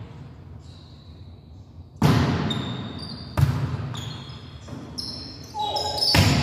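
Volleyball rally in a gym: the ball is struck sharply about two seconds in and again about a second and a half later, with short high sneaker squeaks on the court floor, and the loudest hit near the end as a player spikes at the net.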